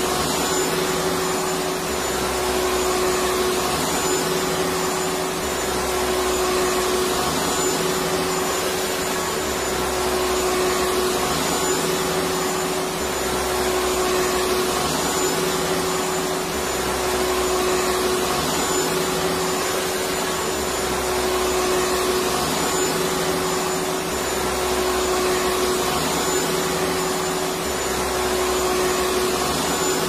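Vacuum cleaner motor running steadily: an even rushing noise with a constant hum-whine, and a faint low pulse repeating about every two seconds.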